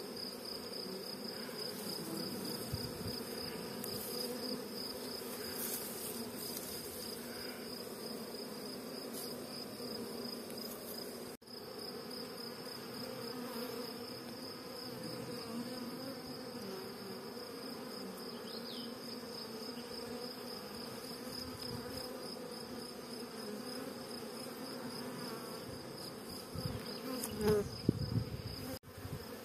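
Honeybee swarm humming steadily as it clusters on a tree branch and over a wooden hive box, with bees flying around it. A few brief knocks come near the end.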